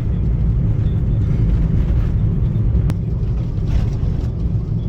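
Steady low rumble of a moving road vehicle, with a single faint click about three seconds in.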